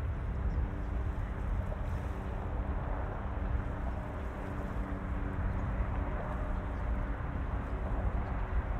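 Steady low engine rumble with a constant droning hum and no sudden events.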